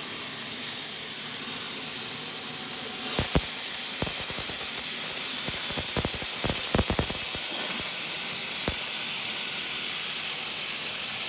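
Hypertherm Powermax 125 plasma torch cutting: a loud, steady hiss of the air-plasma arc, with a few sharp pops scattered through it.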